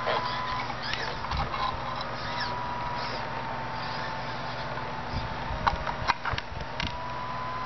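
Radio-controlled model Hitachi excavator running with a steady motor whine whose pitch dips and rises slightly as the arm moves. A few short clicks and knocks come near the end as the bucket works into the dirt.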